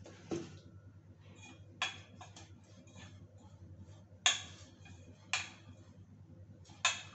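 Utensils clinking against a steel bowl, about five sharp knocks spread over several seconds with the loudest about four seconds in, over a low steady hum.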